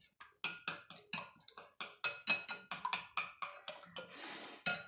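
Metal spoon beating yogurt in a glass bowl, clicking against the glass about four to five times a second with a short ringing note, then a brief scrape and a last knock near the end.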